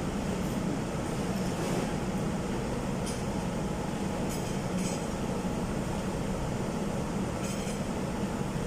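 Steady hum of a busy restaurant's background noise, with a few light clinks of cutlery or glassware scattered through it.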